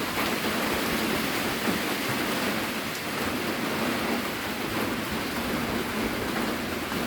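Heavy rain falling steadily: a continuous, even hiss of a rainstorm.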